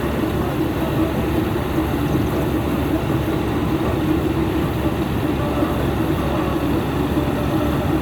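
Engine-driven harvest machinery running steadily at a constant speed: an even, loud mechanical drone with a steady hum.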